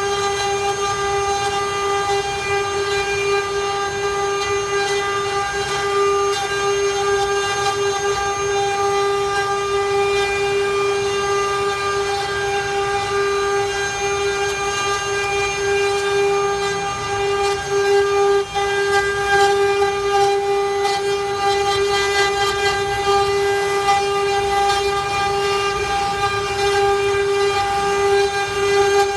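CNC router spindle running with a steady high-pitched whine while it carves a wooden door panel, with faint scratchy cutting noise from the bit under it.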